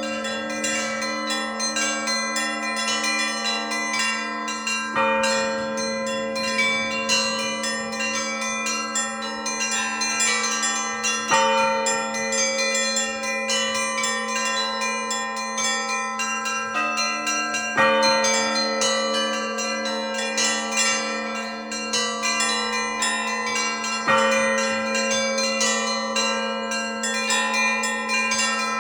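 Russian Orthodox church bells rung in a peal. Small bells chime quickly over a middle bell struck about twice a second and a steady low hum, and a heavy bass bell sounds four times, about every six seconds.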